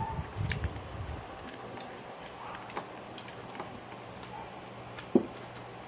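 Close-up eating noises from a person eating by hand: chewing in about the first second, then scattered light clicks and one sharp click a little over five seconds in, over a faint steady hum.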